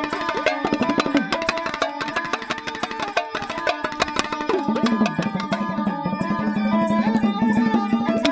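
Dhadi folk music, instrumental: a sarangi bowing a melody over rapid strokes of two dhadd hourglass drums.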